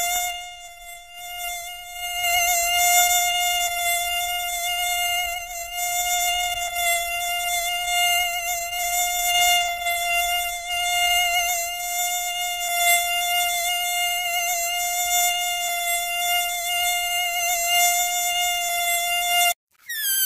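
Mosquito in flight, its wingbeats making a steady high-pitched whine on one pitch. It dips in loudness, comes back stronger about two seconds in, and cuts off just before the end.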